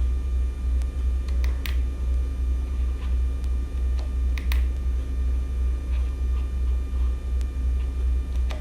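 Steady low rumble with a slight pulse, and scattered light clicks of the motorcycle's handlebar switch buttons being pressed, a few at a time.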